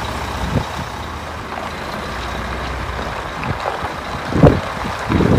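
Concrete mixer truck's diesel engine running as the truck manoeuvres, a steady low hum under a noisy bed, with a few louder low thumps, the loudest about four and a half seconds in.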